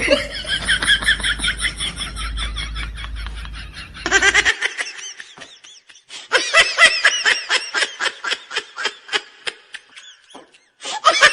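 Rapid, high-pitched laughter in quick pulses, in two long bouts with a short lull about halfway through.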